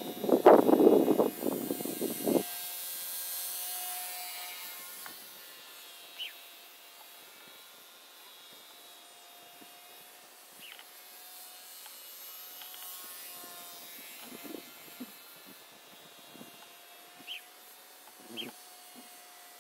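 Wind buffeting the microphone for about the first two seconds, then stopping abruptly. After that, the faint steady whine of a small electric RC plane's motor and propeller flying overhead, with a few short high chirps.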